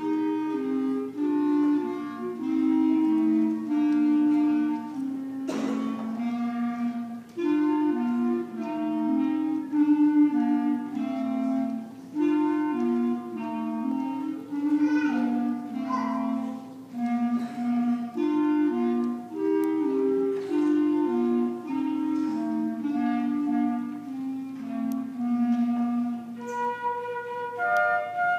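Sixth-grade school concert band playing a piece, with clarinets carrying a melody of held notes over the rest of the woodwinds and brass. Near the end the low melody stops and higher, flute-like notes take over.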